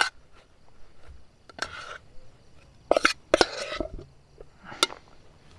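Metal spoon scraping and clinking against a metal camping cook pot while mixing a thick yeast dough: a handful of sharp clicks among softer scrapes.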